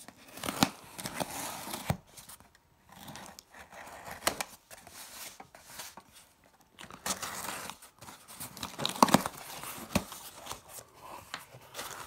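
A small blade slitting the packing tape on a cardboard shipping box, with tape tearing and cardboard scraping in several spells of scratchy noise and sharp clicks. Near the end the box flaps are pulled open.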